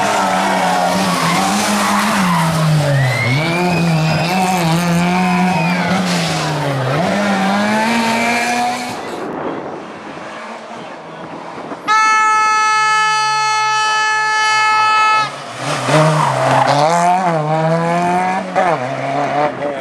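Small rally car engines revving hard, pitch climbing and dropping through gear changes as the cars drive through. About twelve seconds in, a steady horn blast on one pitch sounds for about three seconds and cuts off sharply, then engine revving returns.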